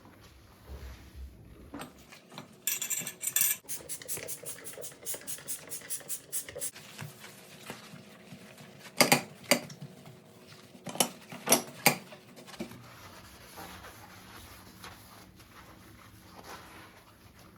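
Dishes and cutlery clattering: a quick run of light clinks, then several loud, sharp knocks about two-thirds of the way through.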